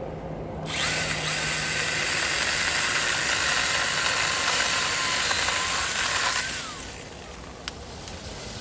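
Stihl GTA 26 battery-powered mini chainsaw (pruning saw) switched on and running its chain at speed with an electric motor whine for about six seconds, then stopping. A single sharp click follows about a second later.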